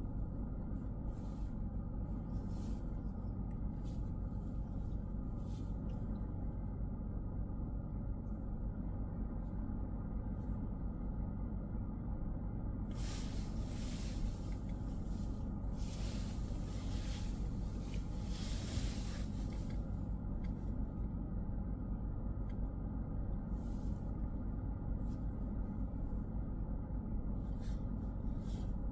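Car driving on a road, heard from inside: a steady low rumble of engine and tyre noise, with a louder hiss for several seconds around the middle.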